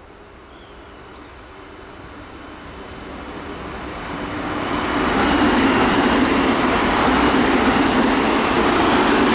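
Nankai 1000 series electric train running through at about 80 km/h. Its wheel-on-rail noise grows steadily louder over about five seconds as it approaches, then stays loud as it passes.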